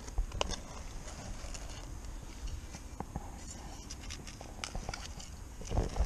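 Scattered scrapes and clicks of a hand digging tool working into hard, baked, dry soil, with a low thump near the end.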